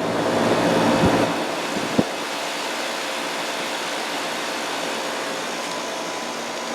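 Central air conditioner outdoor unit running: a steady rushing fan noise with a faint hum. There is a single sharp click about two seconds in.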